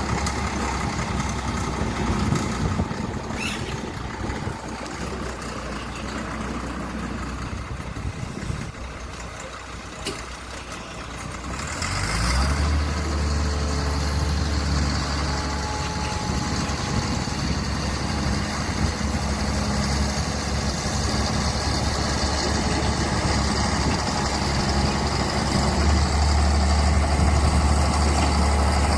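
Diesel engine of a heavy road-work tractor running: it eases off for a few seconds, then revs up about twelve seconds in and runs loud and steady under load.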